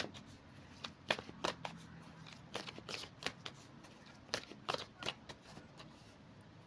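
Tarot cards being shuffled and handled: a string of quick, irregular snaps and rustles of card stock.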